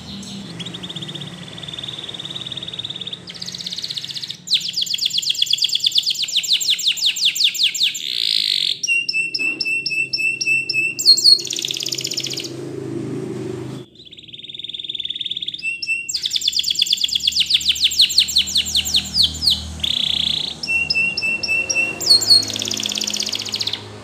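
Canary singing in two long bouts split by a short break about halfway. Each bout has a held whistle, a fast trill of about ten notes a second, a run of short repeated notes and quick rising sweeps.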